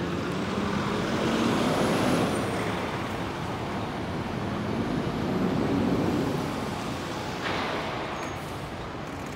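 City street traffic: a steady wash of vehicle engines and tyres, swelling twice as vehicles pass, with a sudden hiss about seven and a half seconds in.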